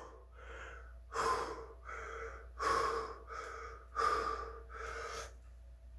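A man panting hard, out of breath mid-set of push-ups: about seven quick breaths in and out, with a louder breath out roughly every second and a half.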